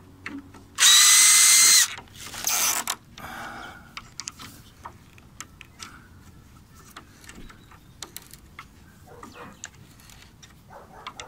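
Cordless drill-driver running for about a second as it backs out a screw from a sliding door's bottom roller housing, then a second, shorter burst. After that come light clicks and scrapes of a screwdriver working the roller housing loose.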